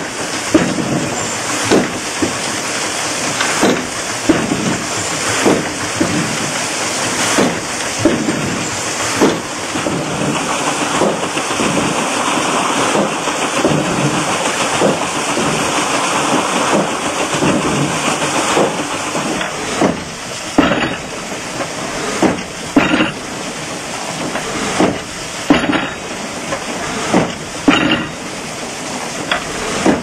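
Old water-powered sawmill running: a steady rushing noise, with repeated knocks of the machinery about once a second that are clearest in the second half.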